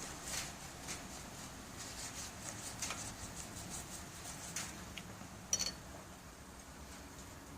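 Paintbrush strokes laying gold lacquer onto an antique picture frame: faint, irregular brushing and dabbing sounds, with one short sharp click about five and a half seconds in.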